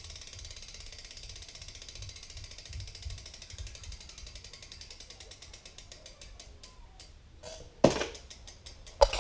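Bicycle freewheel ratchet clicking as a wheel spins freely and slows down: a rapid fine ticking that gradually spreads out to a few clicks a second. There is a sharp knock near the end.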